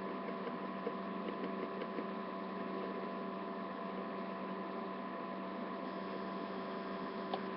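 Steady electrical hum with a few faint clicks from small plastic figure pieces being handled and pressed together.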